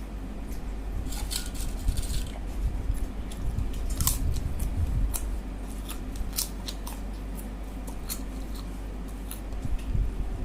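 Eating sounds: irregular sharp wet clicks and smacks of someone chewing a mouthful of egg curry and rice, a few a second, over a low steady hum.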